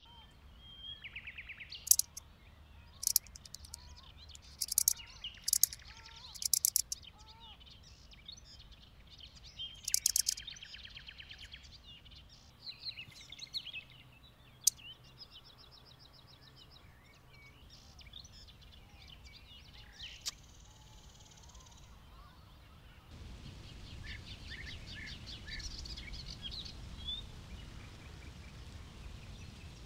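Migratory locusts (Locusta migratoria) stridulating by rubbing the hind legs against the forewings: short rasping bursts of rapid ticks, loudest in the first dozen seconds and fainter further on. Birds chirp in the background.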